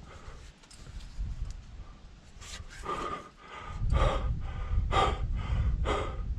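A rock climber breathing hard with effort while climbing a chimney. The heavy breaths come roughly one a second from about halfway in, with a low rumbling noise underneath from about four seconds in.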